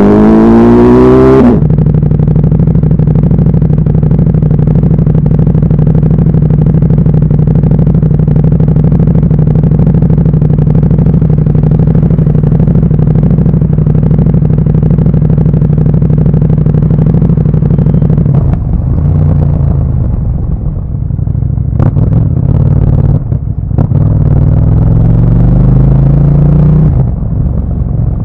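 Motorcycle engine revving up hard for about a second and a half, then holding a steady note at constant revs. After that the revs drop and vary, and it pulls up again near the end.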